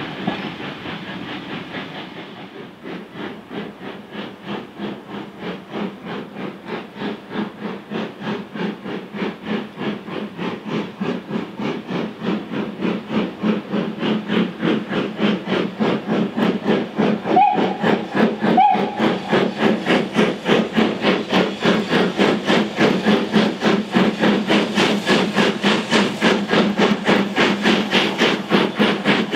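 LMS 4F 0-6-0 steam locomotive working a passenger train, its chimney exhaust beating evenly at about two and a half beats a second and growing steadily louder as it approaches. A passing train's rumble fades out in the first couple of seconds, and two short faint peeps sound about two-thirds of the way through.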